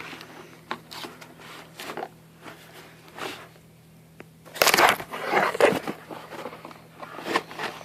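A package being cut and torn open with a pocket knife: irregular crinkling and tearing of the packaging, loudest a little past halfway.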